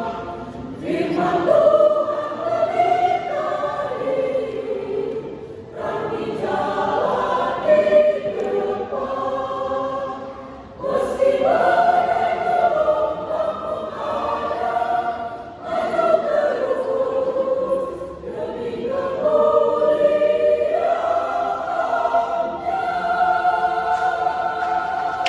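Church choir singing in parts, phrase after phrase with short breath pauses between.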